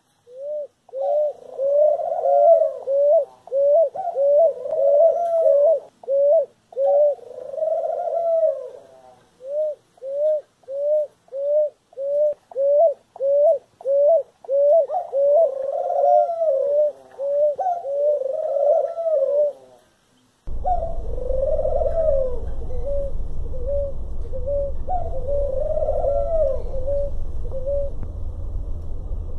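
Ground doves (rolinhas) cooing: a long run of short, repeated coos, about one to two a second. About two-thirds of the way through there is a brief break, then the cooing goes on over a steady low rumble.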